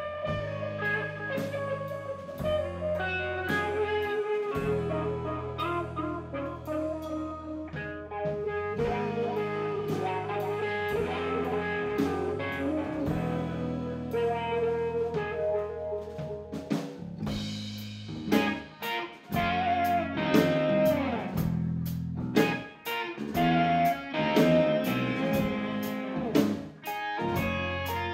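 Live rock-blues band playing an instrumental passage: electric guitar over a drum kit keeping a steady beat, with the drumming getting louder and busier about two-thirds of the way through.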